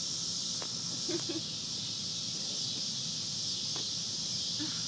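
Steady, unbroken chorus of insects, such as crickets or cicadas, with a few faint clicks.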